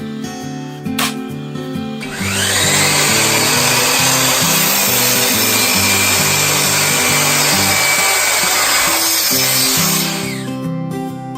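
Electric power saw spinning up with a rising whine, running loud through wood for several seconds, then winding down, most likely making the 45-degree cuts in pine shiplap boards. A single sharp click comes about a second in, and guitar music plays underneath.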